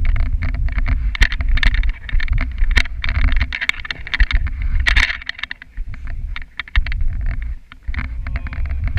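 Dog sled travelling over packed snow: the runners scrape and the sled frame rattles and knocks irregularly over a heavy low rumble that eases for a moment past the middle.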